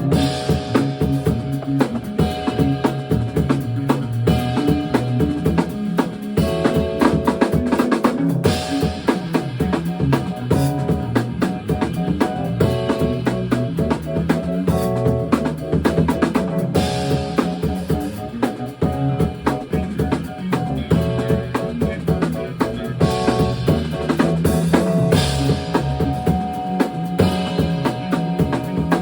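Funk band playing: a drum kit groove with kick, snare and rimshots under electric bass and held keyboard chords.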